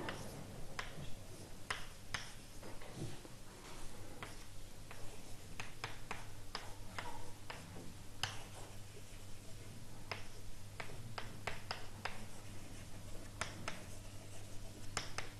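Chalk writing on a blackboard: irregular sharp taps and clicks of the chalk, over a steady low hum.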